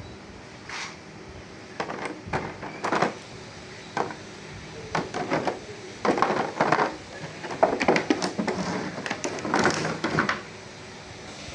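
Irregular clicks, knocks and rattles of plastic toy train parts being handled, busiest in stretches from about six to ten seconds in.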